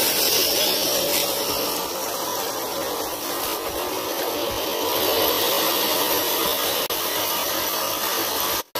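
Small electric motor and geared drivetrain of a 1/10-scale RC Jeep Cherokee crawler whirring steadily as it drives over a dirt trail.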